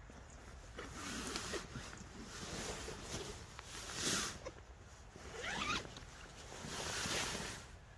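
The zip of a Dutch army hooped bivvy bag being opened from inside in several pulls, with the bag's fabric rustling as it is pushed open. The loudest pull comes about four seconds in.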